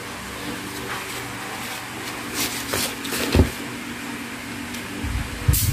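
Steady low mechanical hum, with a few soft clicks and a dull knock a little past halfway, and low rumbling thumps near the end.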